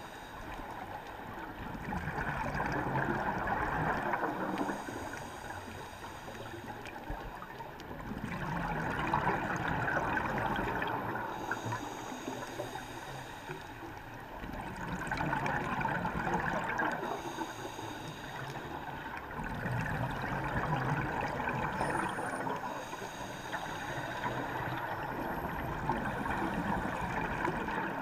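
Scuba diver's exhaled bubbles from the regulator, heard underwater: a bubbling rush that swells for about three seconds every five to six seconds in a steady breathing rhythm, quieter between breaths.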